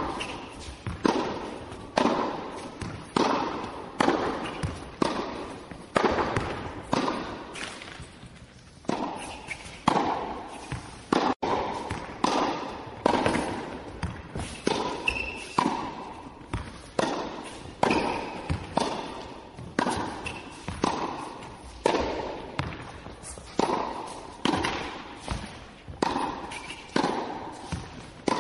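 Tennis ball hit back and forth in a rally: racquet strikes and court bounces in a steady rhythm, roughly one loud hit a second with softer ones in between, each ringing on briefly.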